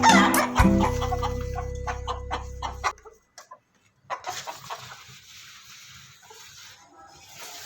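Chickens clucking in a cage, with background music under the first few seconds that stops about three seconds in. The clucking carries on more quietly after a brief silence.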